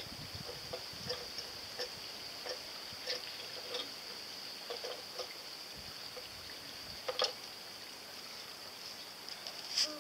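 Faint, irregular light clicks and taps as a small plastic model foil kayak is handled and adjusted, over a steady high-pitched hiss.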